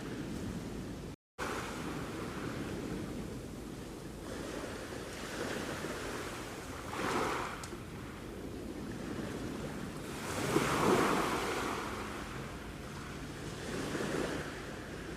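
Sea waves washing on the shore: a steady hiss of surf that swells as waves break, about 7 seconds in, loudest around 11 seconds, and again near 14 seconds. The sound cuts out completely for a moment about a second in.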